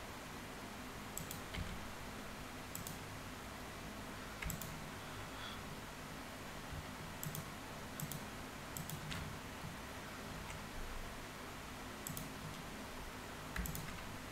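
Computer mouse and keyboard clicks, about a dozen sharp clicks at irregular intervals, some in quick pairs, over a faint steady hum and hiss.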